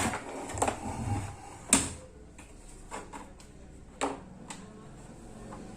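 Scattered clicks and knocks of hard parts and tools being handled during electronics repair work, the loudest about two seconds in and another about four seconds in.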